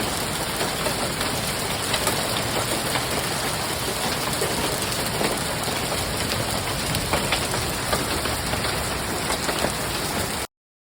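Hailstones pelting down in a storm, a dense, steady clatter of many small impacts. It cuts off abruptly near the end.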